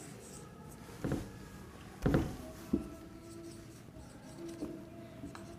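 Faint strokes of a marker writing on a whiteboard, with a few short soft knocks, the loudest about two seconds in.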